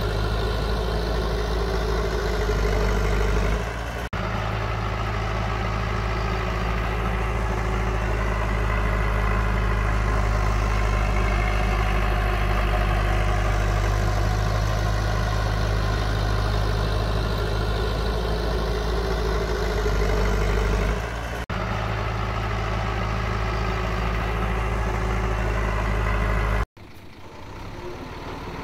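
Heavy diesel earthmoving machinery running at a steady pace, with a deep, even engine note. The sound breaks off abruptly about 4 seconds in and again about 21 seconds in, and near the end it drops suddenly to a quieter engine sound.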